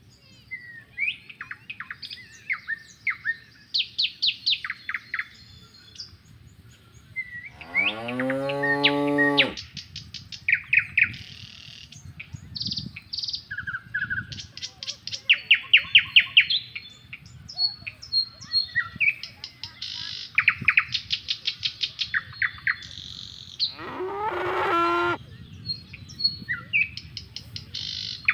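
Songbirds chirping and trilling throughout, with cattle mooing twice: one long low moo about eight seconds in and a higher, shorter one near the end.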